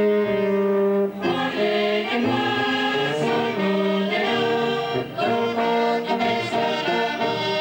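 Live folk music: a piano accordion playing a tune in held, changing notes, with a group of voices singing along.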